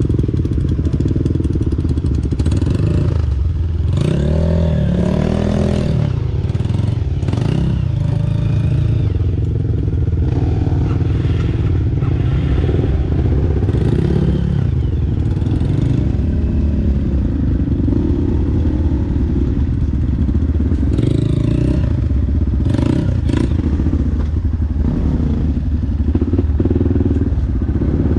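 Dirt bike engine running under load, its pitch rising and falling with the throttle, with a sweeping rev about four seconds in. Clattering and knocks from the bike working over rough ground run through it.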